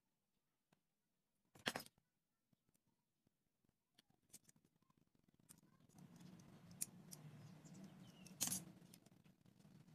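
Faint clicks and light scrapes of small craft work: a small pointed hand tool and bamboo toothpick being handled against a popsicle-stick piece. A faint steady low hum comes in about six seconds in.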